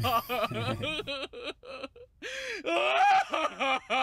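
A dubbed cartoon man's voice sobbing and wailing in wavering, gasping cries. It breaks off briefly about halfway, then starts again in rising and falling wails.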